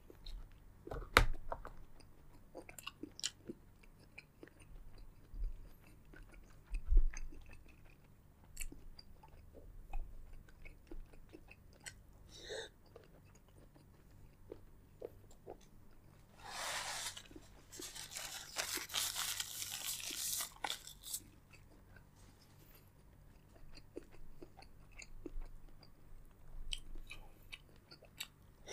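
Close-up eating sounds from a seafood boil: chewing with crunches and wet clicks of shell and food, with a louder, noisier stretch of a few seconds about two-thirds of the way through.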